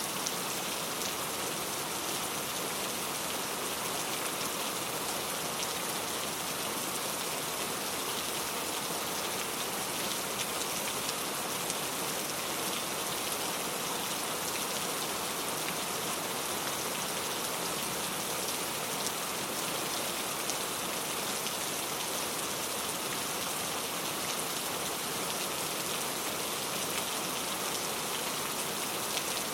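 Steady rain falling on a surface, an even hiss with many fine drop ticks that doesn't let up.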